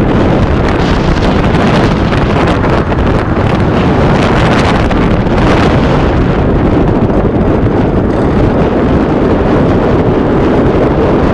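Citroën Saxo VTR being driven: steady, loud road and wind noise with no clear engine note.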